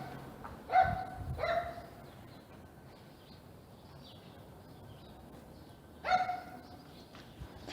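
A dog barking: two short barks in quick succession about a second in, then one more bark near the end.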